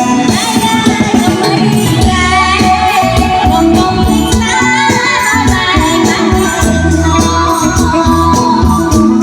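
Khmer romvong dance song: a sung melody over a band with a steady beat and rattling percussion, played loud.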